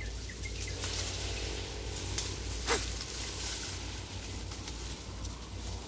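Dry stalks and leaves of a dense cane thicket rustling as a man climbs through it, with two sharp cracks about two and a half seconds in over a steady low rumble.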